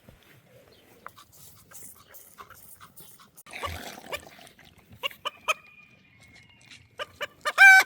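Faint rustling and clicks, then a short, loud, high-pitched animal cry near the end.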